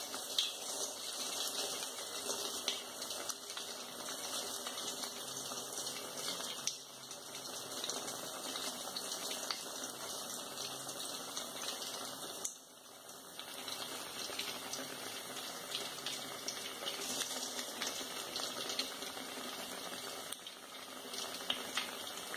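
A bread roll deep-frying in hot oil: a steady sizzling hiss full of fine crackles, briefly quieter just past halfway.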